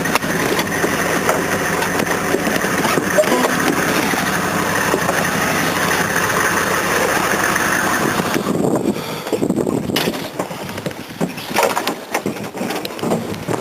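A vehicle engine running steadily that shuts off about eight and a half seconds in, followed by scattered knocks and rustling.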